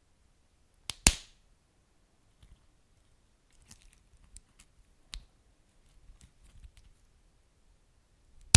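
Wood fire crackling: a few sharp pops, about a second in, midway and loudest at the very end, with faint scattered crackles between them.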